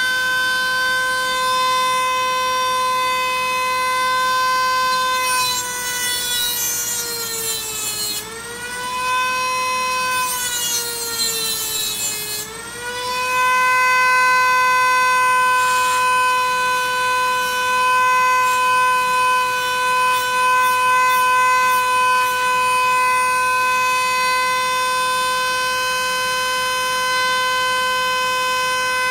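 Dremel rotary tool with a cutoff wheel, running with a steady high whine as it cuts into a small diecast metal truck cab. A gritty grinding joins in from about five to thirteen seconds in, and the whine sags in pitch twice, around eight and twelve seconds in, as the wheel bites into the metal.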